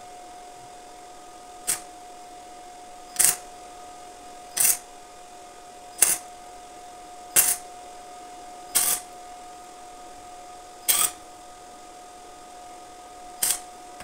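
Arc welder laying eight short tack welds on a bicycle frame, each a brief burst about a second and a half apart, with longer gaps near the end, over a steady faint whine. The tacks are small, just enough to hold the parts in place.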